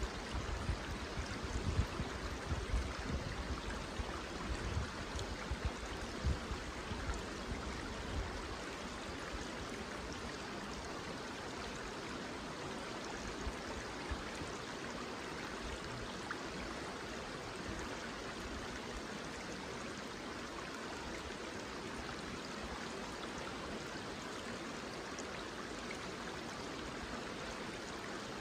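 Steady rushing of a flowing river. A few low thumps come over it in the first several seconds.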